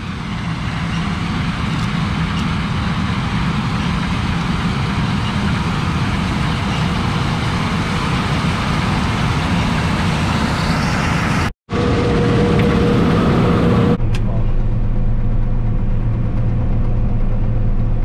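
John Deere combine harvesting beans, its engine and threshing machinery running steadily under load. About 14 s in the sound turns to a duller, steadier hum, heard from inside the combine's cab.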